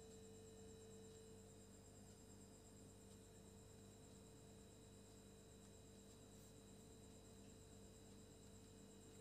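Near silence: room tone with a faint, steady electronic hum made of a few thin unchanging tones.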